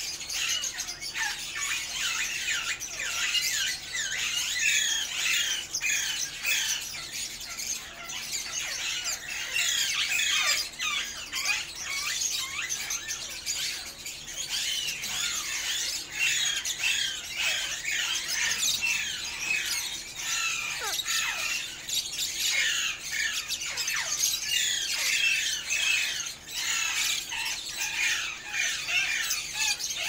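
Many caged parrots, Alexandrine parakeets among them, calling at once: a continuous chorus of overlapping high-pitched squawks and chirps, many of the short calls falling in pitch.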